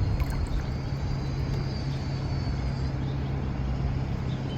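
A boat motor running steadily with a low, even hum.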